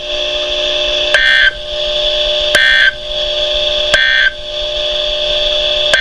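NOAA weather alert radio sending three short bursts of SAME digital data tones about a second and a half apart over a steady hum: the end-of-message code that closes a National Weather Service winter storm warning. It is heard through a computer's speakers.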